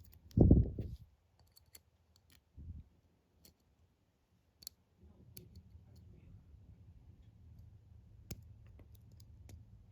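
Scattered small sharp clicks of a lock pick and tension wrench working the pins of a brass Master Lock 140 padlock. A loud dull thump about half a second in and a weaker one a couple of seconds later, from the lock or tools being handled.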